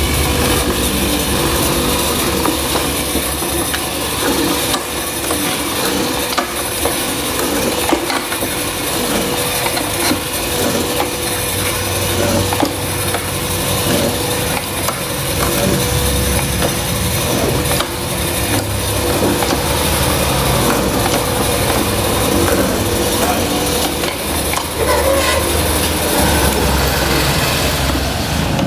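Hollow-chisel mortising machine running, its electric motor giving a steady hum while the square chisel and auger bit are plunged into a wooden beam. Each plunge brings crunching and scraping as the bit chews out wood chips.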